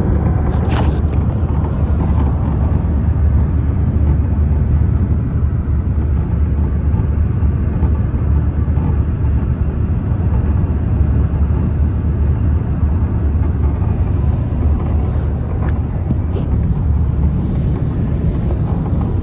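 Peugeot 308 SW driving, with a steady low rumble of road and engine noise. A brief sharp click or creak comes about a second in, and a few fainter ones come near the end.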